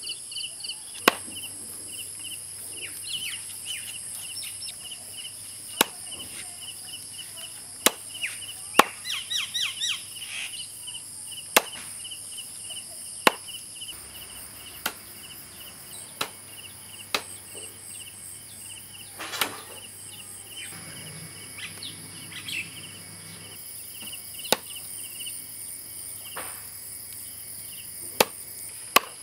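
Large curved knife chopping raw chicken on a wooden tree-stump block: sharp single chops every second or two. Insects shrill steadily in the background.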